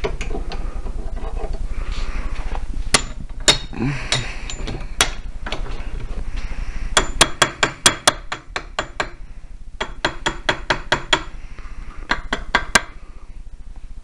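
Sharp metal-on-metal taps on a freshly welded steel part, a few single knocks first and then quick runs of several taps, each with a short high ring. A steady low hum runs underneath.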